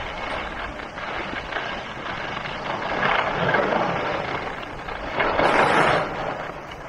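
Skis sliding and scraping over hard-packed groomed snow as a skier runs downhill. The scrape swells louder twice, about three seconds in and again near the end.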